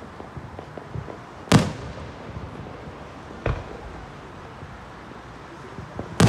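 Aerial fireworks going off: three sharp bangs, about a second and a half in, about three and a half seconds in, and a loud one at the very end, with a few smaller pops between.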